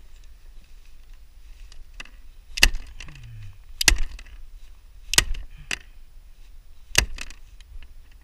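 Four hard, sharp knocks, about a second or two apart.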